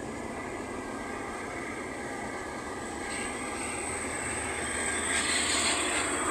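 Engine and road noise of a moving car heard from inside its cabin, a steady drone that grows louder from about three seconds in.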